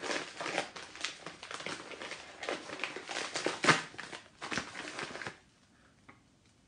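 Wrapping crinkling and rustling as a small item is unwrapped by hand: a run of uneven crackly rustles that stops about five seconds in.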